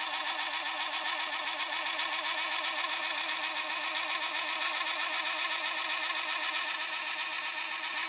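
Small geared motor of a Neptune Apex AFS automatic fish feeder running steadily as it turns the food drum, a gear whine that wavers quickly and evenly. The feeder is working again on a feed cycle.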